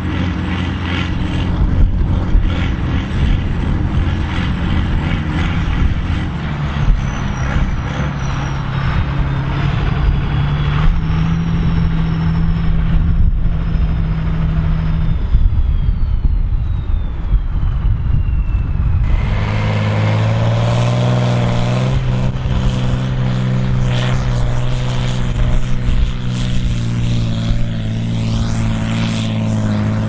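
Volvo BM 810 Turbo tractor's turbocharged diesel engine running hard under plough load, with a high whine that falls slowly over several seconds. About two-thirds of the way through, the sound switches abruptly to a steady, strained engine note with a rising high whistle.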